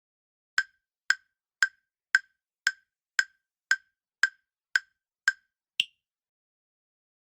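Countdown-timer sound effect: a run of eleven short wood-block ticks, about two a second, the last tick higher in pitch.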